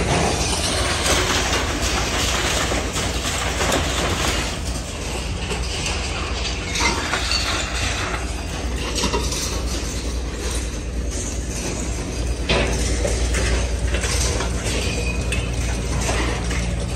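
Industrial scrap-metal shredder plant running: a steady low hum under irregular metallic clanking and rattling from the machinery.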